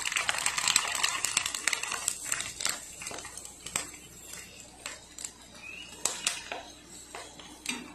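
A sabudana (sago) papad deep-frying in piping-hot oil in an iron kadhai: a dense sizzle and crackle full of sharp pops, loudest at first and dying down over the next few seconds.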